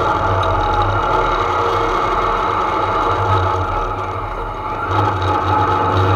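Heard from inside the cabin: a 2.6-litre Type 4 flat-four race engine with Weber 48 IDA carburettors and a 4-into-1 header, running steadily, easing off briefly about four seconds in before picking up again.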